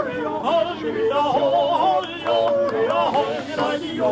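Sardinian traditional singing: voices carrying a wavering, ornamented melody in phrases, with a short break about two seconds in.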